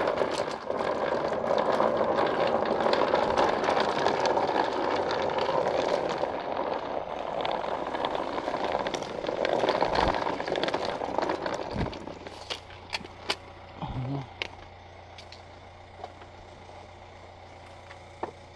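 Wheeled suitcase rolling over the ground as a loud rough rumble for about twelve seconds, then stopping. After that a car engine idles as a low steady hum, with a few clicks and knocks.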